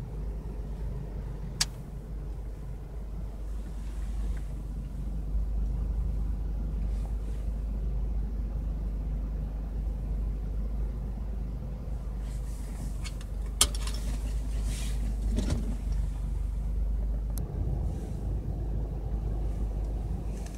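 Low, steady rumble of a car heard from inside its cabin as it rolls slowly along, with a few short sharp clicks, the loudest about two-thirds of the way through.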